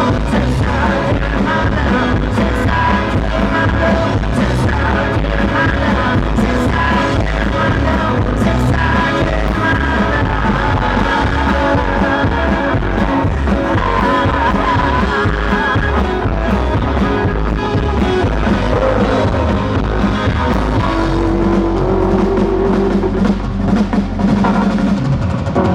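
Live rock band playing an instrumental passage with drum kit, electric guitars and bass at full volume. Near the end the drumming thins and held guitar notes carry the sound.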